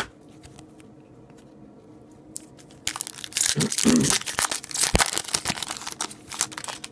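A foil hockey-card pack wrapper being torn open and crinkled by hand, starting about three seconds in after a few light clicks, with a sharp rip about two seconds later.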